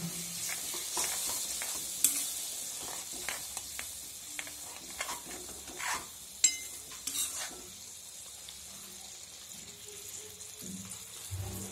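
Masala paste sizzling in hot oil in a pan with a little water just added, as a spatula stirs it, scraping and clicking against the pan, sharpest about two seconds and six and a half seconds in.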